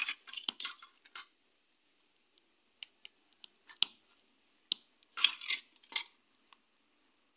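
A spoon scraping and clinking against a steel bowl as sauce is scooped out: short bursts of scraping in the first second and again around five to six seconds in, with single sharp ticks between.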